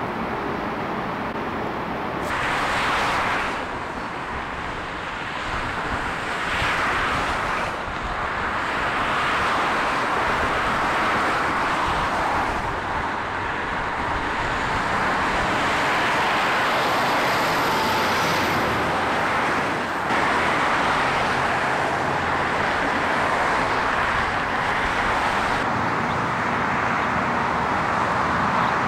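Freeway traffic noise: a steady rush of many cars and trucks passing, with a couple of louder swells as single vehicles go by in the first several seconds.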